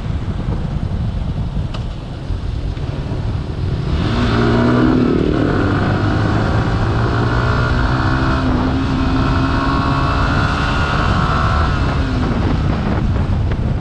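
Yamaha R15 V3's 155 cc liquid-cooled single-cylinder four-stroke engine heard from the rider's seat, accelerating in third gear, its pitch climbing steadily with road speed. For the first few seconds mostly wind rush over the microphone is heard, then the engine note comes up about four seconds in and sinks back into the wind rush near the end.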